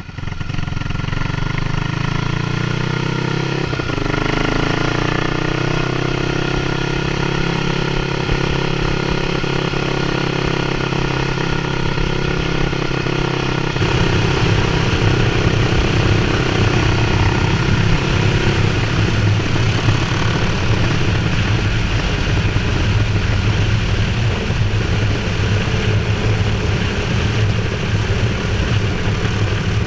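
ATK 600's Rotax single-cylinder engine running under way, heard from on the bike. Its pitch climbs over the first few seconds as it accelerates, then holds. About fourteen seconds in the sound cuts to a rougher, noisier engine note that carries on steadily.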